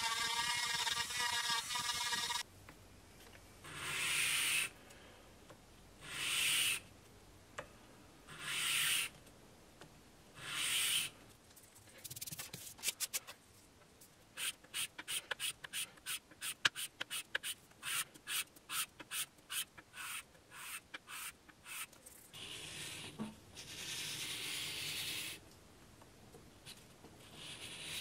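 A small handheld rotary tool whines as its bit carves into white oak for about two seconds. Then comes hand sanding: the oak mouthpiece is rubbed on sandpaper laid over a granite surface plate to flatten its table. There are four slow, long strokes, then a run of quick short strokes at about two to three a second, then longer rubs near the end.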